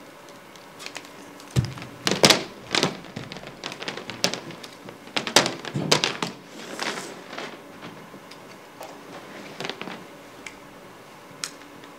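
Irregular knocks, taps and thumps on a stage, about a dozen scattered and mostly in the first half, as performers move and handle small props such as handheld lights and a table lamp.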